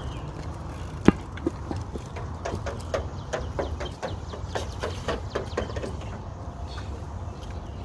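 A kid's BMX bicycle being ridden over a concrete sidewalk. There is a sharp knock about a second in, then a run of short clattering knocks and rattles over a steady low rumble.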